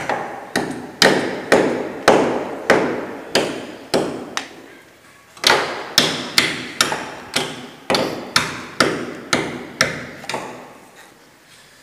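Sharp, repeated knocks with a short ring after each, about two a second, in two runs broken by a brief pause about five seconds in, while a rubber breakout boot is being worked onto a three-core 50 mm² XLPE power cable.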